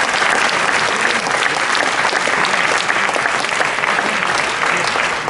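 Audience applauding: steady, dense clapping that eases off slightly near the end.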